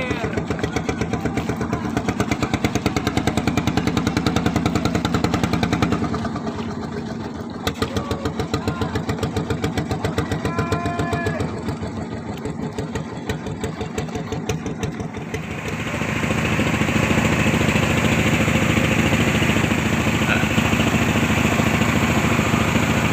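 Small engine running with an even pulsing beat, then growing louder and smoother, with more hiss, about fifteen seconds in, as if throttled up and under way.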